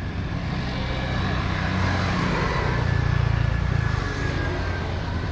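A small motorcycle engine passes close by, loudest about three seconds in, over the steady noise of street traffic.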